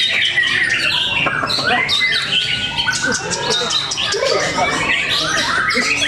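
Many caged white-rumped shamas (murai batu) singing against one another at once: a dense tangle of overlapping whistled phrases, glides and rapid chattering calls, with bursts of quick notes about three seconds in and again near the end.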